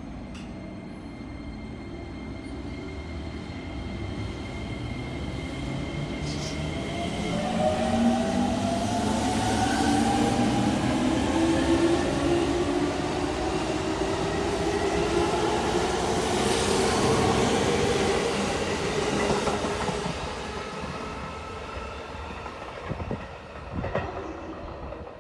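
A JR East 205 series electric commuter train departing and accelerating past: the traction motors give a whine that rises steadily in pitch, joined by the rumble and clatter of the wheels on the rails. It grows louder as the cars pass close by, then fades as the train draws away near the end.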